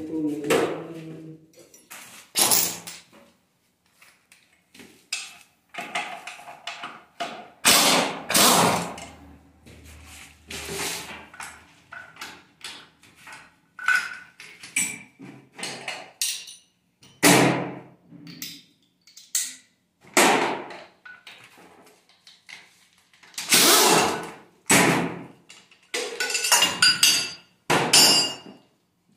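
Hand tools and metal parts clanking and knocking while the intake manifold is taken off a Toyota 1FZ straight-six engine. The strikes are sharp and come irregularly, a second or several apart, and a few ring briefly near the end.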